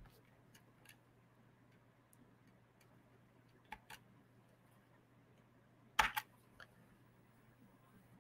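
Quiet room tone with a few short, sharp clicks, the loudest about six seconds in.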